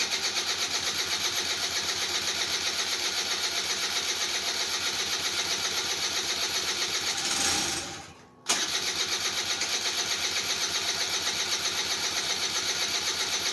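Electric starter cranking a 150cc Kymco scooter engine, primed with brake cleaner down the plug hole, in a fast even chug of about eight beats a second. Near seven seconds it swells as the engine tries to catch. It stops briefly just after eight seconds, then cranks again with a click, still without starting.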